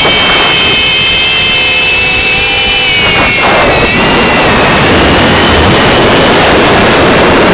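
FPV quadcopter's brushless motors and propellers whining at high speed, picked up close by the drone's onboard camera over loud air rush. The whine wavers a little in pitch. The rushing eases for a couple of seconds about half a second in, then comes back.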